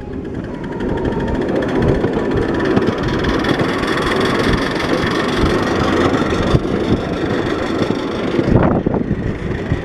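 Miniature ride-on steam train running backwards along its track: a steady rumbling, hissing noise.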